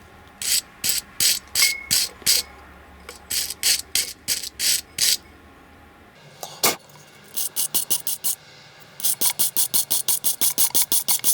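Quick series of short scraping strokes on rusty metal, in bursts that speed up to about six strokes a second near the end, as the old grease gun's parts are scraped or brushed clean.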